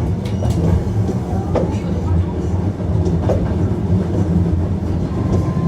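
Running sound inside a Hankyu 1300 series train car: a steady low rumble of wheels on rail, with a few sharp clacks over the rail joints. About five seconds in, a steady high whine sets in.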